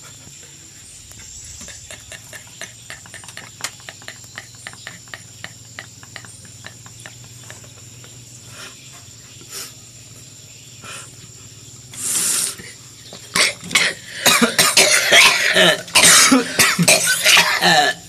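Coughing: one loud cough about twelve seconds in, then a long fit of loud, rapid coughs over the last five seconds. Before it there are only faint scattered clicks.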